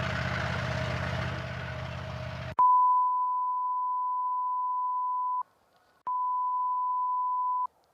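A vehicle engine running with road noise, cutting off abruptly about two and a half seconds in. Then a steady one-pitch electronic beep lasts nearly three seconds, and a second, shorter beep follows after a short break.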